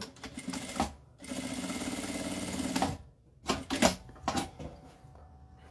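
Industrial sewing machine running in one steady burst of about two seconds, stitching closed the turning opening of a bag lining. A few short knocks and fabric rustles follow as the work is handled.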